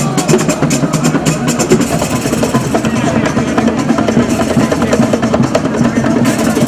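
Loud music driven by drums, with rapid drum strokes in the first couple of seconds.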